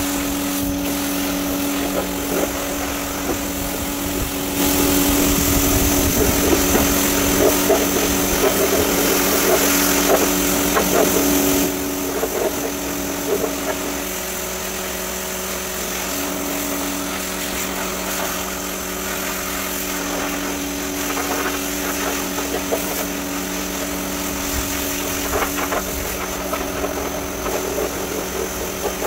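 Pressure washer running steadily while its jet sprays a foam-soaked car carpet; the spray hiss gets louder from about five seconds in until about twelve seconds in.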